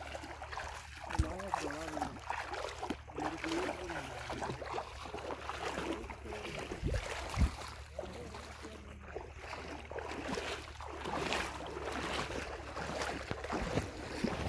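Shallow river water swishing and splashing around a person's legs as he wades, with wind rumbling on the microphone and a few low thumps.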